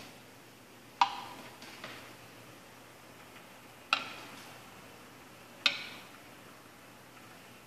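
Three sharp clicks, each with a short ringing tail that fades within about half a second: one about a second in, one near four seconds in and one just before six seconds.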